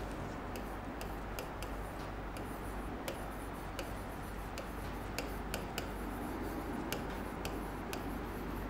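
A stylus tapping and sliding on the glass of an interactive whiteboard while words are handwritten, giving a string of light, irregular clicks over a steady low room hum.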